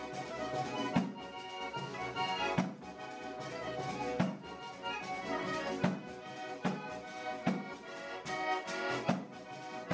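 Background music with held melody notes over a steady beat, a little more than one beat a second.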